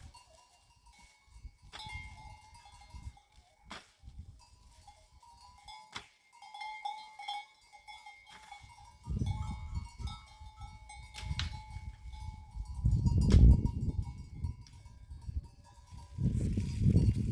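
Bells on goats and sheep ringing faintly as the flock moves, with scattered clicks. About halfway through, a loud low rumble sets in over them, strongest a few seconds later.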